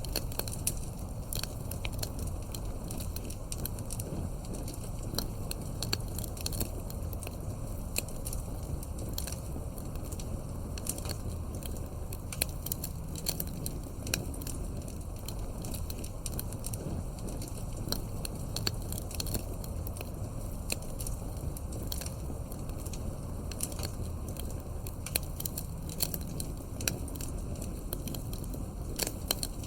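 Wood fire crackling: irregular sharp pops and snaps of burning logs over a steady low rumble of flames.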